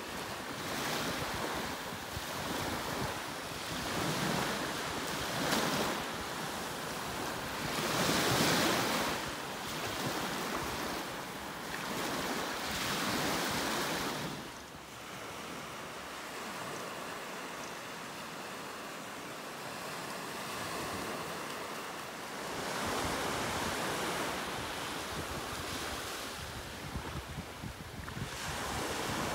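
Small Mediterranean waves breaking and washing up on a sandy shore, the surf rising and falling in surges every few seconds, with a quieter lull midway.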